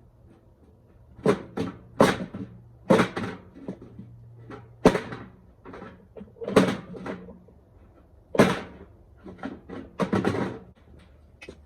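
Irregular sheet-metal clanks, knocks and scrapes as a furnace blower assembly is worked loose and pulled out of its housing, about a dozen hits spread over several seconds.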